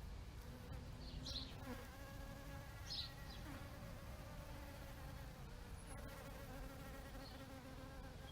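Bees buzzing in flight, a steady droning hum whose pitch wavers slightly, with a few short high chirps about a second, three seconds and seven seconds in.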